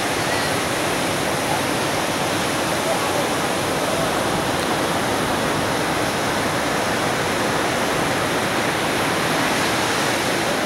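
Ocean surf breaking on a sandy beach: a steady, even wash of breaking waves from a large swell.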